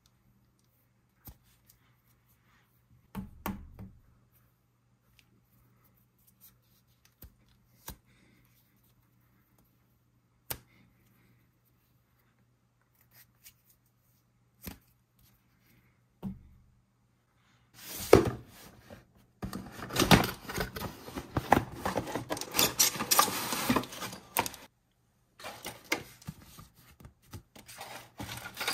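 Unboxing handling sounds: a few faint taps and soft knocks while a stretchy rubber toy figure is handled, then, about two-thirds of the way in, dense crinkling and rustling as a cardboard box of plastic-bagged toy parts is opened and unpacked, with a brief pause shortly before the end.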